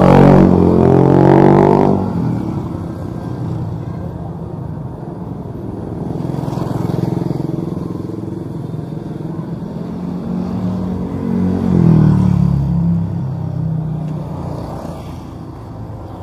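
Small motorbike engines passing close by in a narrow alley. The loudest one runs through the first two seconds with its pitch shifting, and a second swells up and fades about twelve seconds in.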